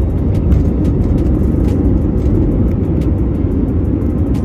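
Cabin noise of an Airbus A321neo on its takeoff roll and lift-off: a loud, steady, deep rumble of the engines at takeoff power and the wheels on the runway, with scattered light knocks through it.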